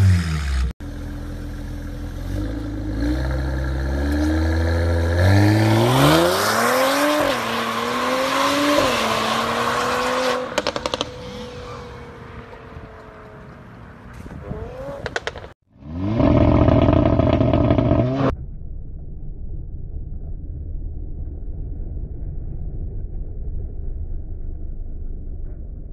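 Mercedes-AMG car engines across several short clips. The first note falls off from a rev. Then a car accelerates hard, its note climbing and dropping back at each upshift. After a brief loud burst, the muffled engine of an A45 AMG hatchback runs as it slides on a dusty road.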